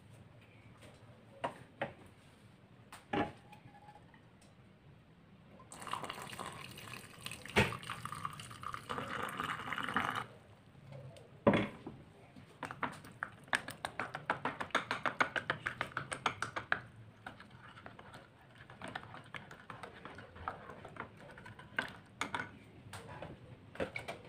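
Liquid poured into a ceramic mug for about four seconds. Then a spoon stirs the drink, clinking rapidly against the sides of the mug, with a few scattered taps after.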